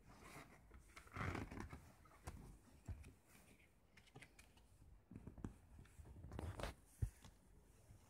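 A paper CD booklet being handled and slid into a clear plastic jewel case: soft rustling and scraping of paper on plastic with several small clicks, a sharp click near the end.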